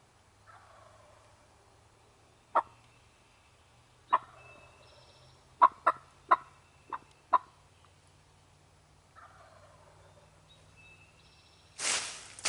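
Turkey calls: a faint falling call near the start and another past the middle, with a string of seven sharp, single clucks between them. A loud rustle starts near the end.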